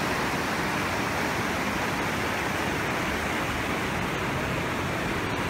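Fast mountain river rushing over boulders: a steady, unbroken rush of whitewater.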